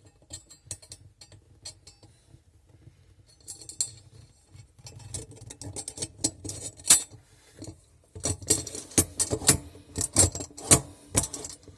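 Dishwasher's upper basket being slid and yanked back and forth on its rails, the wire rack and rollers rattling and clanking. The clatter is sparse at first and grows busier and louder from about eight seconds in, as the basket is pulled hard against the new rail stops.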